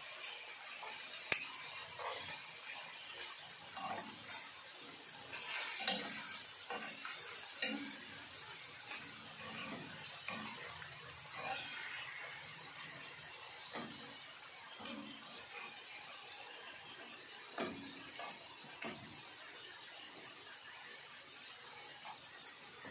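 Cooking in a pot: a utensil stirring and knocking against the pot over a steady sizzling hiss, with a few sharp clinks in the first eight seconds.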